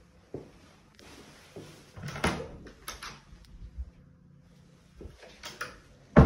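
Hinged wardrobe door opened with a latch click and a swish, a few clicks and knocks, then banged shut near the end.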